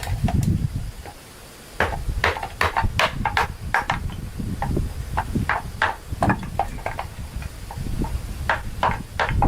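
An irregular series of sharp knocks and taps, several a second, over a low rumble, after a short lull about a second in.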